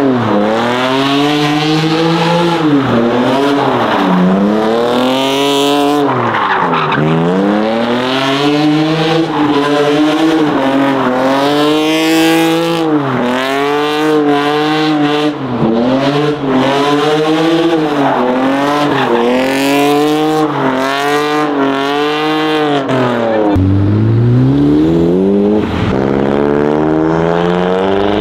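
Car engine revving hard over and over, its pitch climbing and dropping every second or two. About 23 seconds in, a deeper engine note starts and rises steadily as it accelerates.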